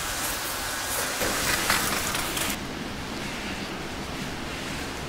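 Wood fire burning in a Solo Stove, a steady hiss with crackles; the hiss drops off abruptly about two and a half seconds in.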